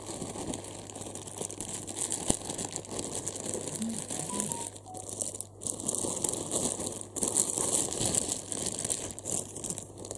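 Clear plastic bag crinkling continuously as hands handle it and work it off a stuffed toy, with a few brief pauses about midway.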